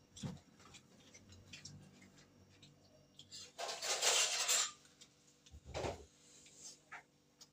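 Quiet mealtime clatter of steel plates and spoons, with faint clinks and knocks and a low thud near the end. A brief noisy burst about halfway through is the loudest sound.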